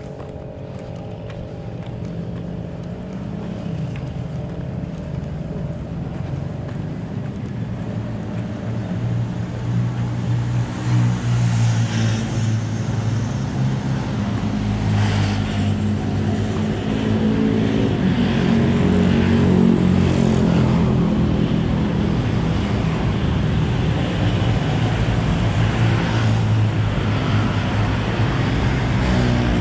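A vehicle's engine running while under way, with road and wind noise, growing louder over the first ten seconds or so and then holding steady.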